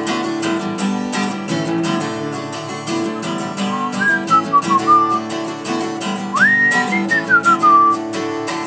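Acoustic guitar strummed in a steady rhythm during an instrumental break with no singing. A whistled melody joins it about four seconds in and again near the end; the second whistle slides up, holds, then falls away.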